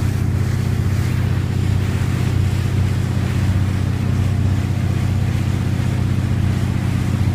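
Motorboat engine running steadily at towing speed, a constant low drone, with the rush of water from the boat's wake.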